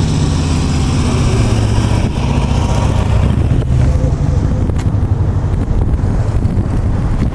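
A motor vehicle running close by, a steady low rumble that eases a little about three seconds in, with wind on the microphone.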